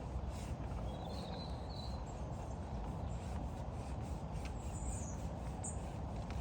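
Steady low outdoor background rumble, with a few faint, short bird chirps about a second in and again near the end.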